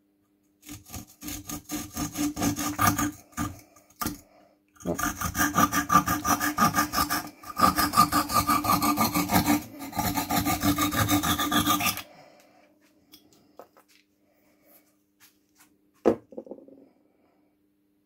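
The saw blade of a Mikov Praktik pocket knife cutting through dry pine held in a vise: quick back-and-forth rasping strokes in two runs, with a short break about four seconds in. The sawing stops about twelve seconds in, and a single knock follows about four seconds later.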